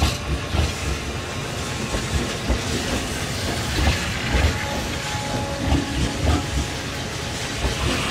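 TRAIN SUITE Shiki-shima (E001 series) cars running past close by along the platform: a steady rushing noise with irregular low thumps from the wheels on the rails.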